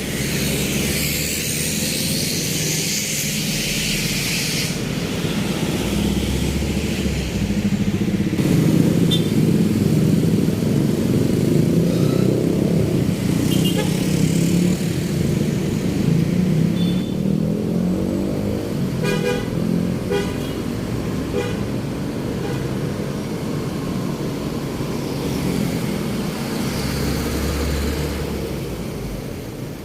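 Busy road traffic: vehicle engines running steadily past, with short horn toots now and then and a cluster of quick toots about two thirds of the way through. A loud hiss sounds over the first few seconds.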